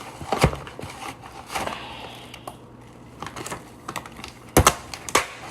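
Plastic bag crinkling and rustling as raw ground meat is grabbed through it, with a few sharp clicks and taps, the loudest two near the end.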